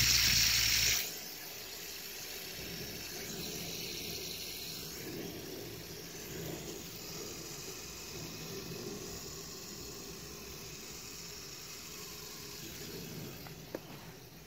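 A handheld fidget spinner spinning close to the microphone: a steady hiss with a faint whir from its bearing. It follows a loud rush of noise in the first second that cuts off suddenly, and there is a single click near the end.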